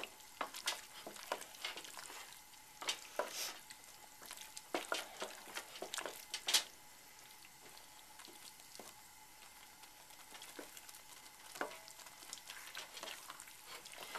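Wooden spoon stirring a thick mixture of browned sausage and melting cheese in a stainless steel pot, in irregular scraping, squelching strokes. The strokes are busy for the first half, thin out in the middle, and pick up again near the end.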